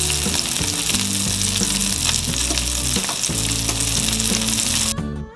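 Salmon frying in olive oil in a hot skillet: a steady, dense sizzle, with background music under it. The sizzle cuts off suddenly near the end, leaving acoustic guitar music.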